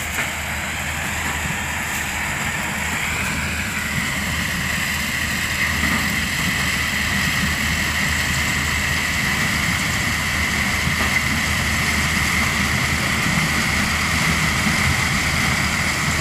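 Kubota combine harvester running while cutting dry corn stalks: a steady diesel engine rumble and machinery noise, with a steady high whine coming in about four seconds in, growing slowly louder as the machine approaches.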